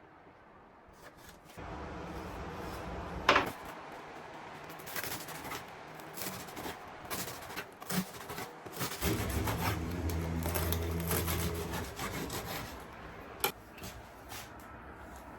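Rubbing and scraping handling sounds with a few sharp clicks, over a steady low hum that starts about two seconds in and grows louder in the middle.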